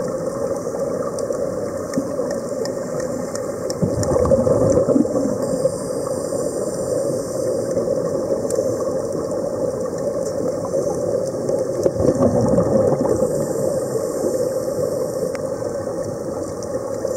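Underwater ambience heard with the microphone below the surface: a steady, muffled drone, swelling louder about four seconds in and again around twelve seconds.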